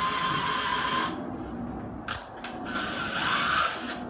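Handheld power drill drilling into a wall with a steady whine, in two runs of about a second each, with a few clicks in the pause between them.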